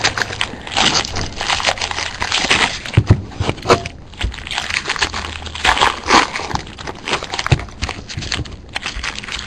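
Crinkling, rustling and scraping of card packaging being handled and opened: a run of irregular crackles and rustles.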